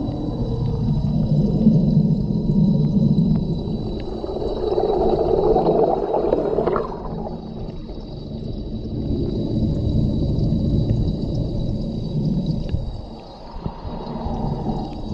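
Aquarium water and air bubbles gurgling, heard as a muffled low rumble that swells and fades every few seconds, with a faint steady high whine running throughout.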